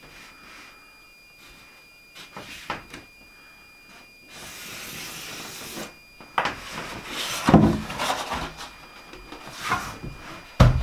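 Wood being handled during interior wall fitting. There are light knocks, then a sliding, rubbing scrape lasting about two seconds, then a run of louder knocks and thumps as the wood is worked into place, with a heavy thump near the end.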